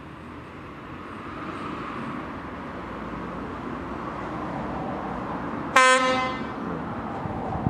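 Electric locomotive hauling a passenger train approaching, its running noise slowly growing louder, then one short, loud horn blast about six seconds in.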